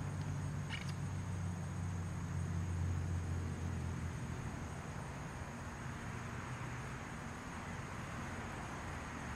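A low, steady engine hum, strongest for the first four seconds and then fading, over a faint steady high whine. A faint click comes about three quarters of a second in.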